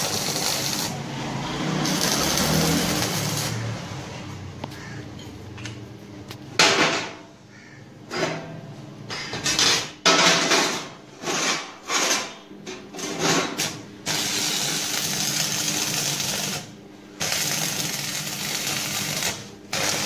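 Stick-welding arc on steel bar, a steady crackling hiss. In the middle it comes as a run of short separate bursts, like quick tack welds, before settling back into longer continuous runs.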